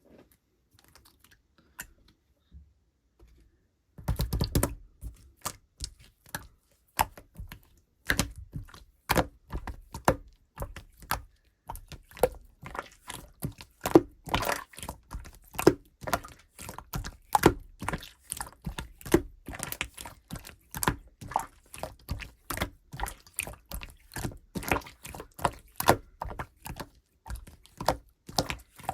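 Clear slime being squished and pressed in the hands, making repeated sticky clicks and pops, about two to three a second. The clicking starts about four seconds in, after a few faint ticks.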